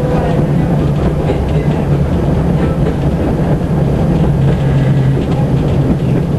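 Tatra T6 tram running along the track, heard from inside the passenger cabin: a steady low hum with rattling wheel-on-rail noise.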